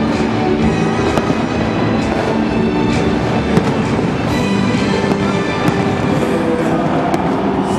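Fireworks going off in a dense run of sharp cracks and bangs, with music playing loudly underneath.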